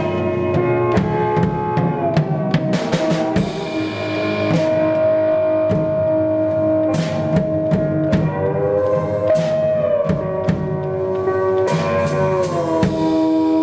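Instrumental jam-band rock music: a drum kit keeps a steady beat with cymbal hits under sustained chords that slide to new pitches every few seconds.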